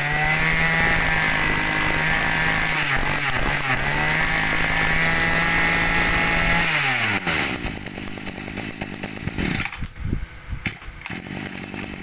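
Echo 22cc two-stroke brush cutter engine revved and held at high speed with a steady high whine, dipping briefly about three seconds in. About seven seconds in the throttle is released and the pitch falls away, leaving a lower, uneven running sound with a few clicks.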